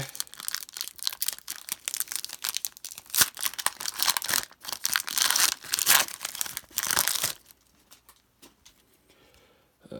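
A Panini Prizm football card pack wrapper being torn open and crinkled for about seven seconds, then a few light ticks.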